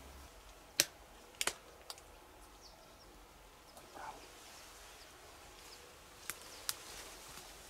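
A few sharp clicks and snaps over a quiet rural background: one louder click about a second in, a quick pair just after, and two more near the end. They come from hunters shifting in brush and shouldering their shotguns.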